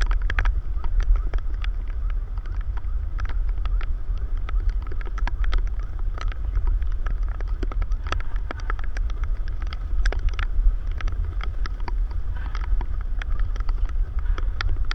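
Rain, with irregular raindrop ticks over a heavy low rumble of wind on the microphone.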